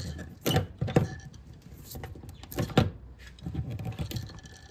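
Hand pop-rivet gun being squeezed stroke by stroke, setting a rivet through a plastic rod-holder flange into an aluminium boat: a few sharp metallic clicks, the loudest near three seconds in.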